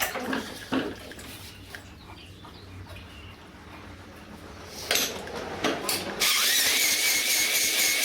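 A small gasoline engine's rhythmic running cuts out at the start, followed by a few knocks. About six seconds in, an electric drill used as the engine's starter spins up with a steady high whine.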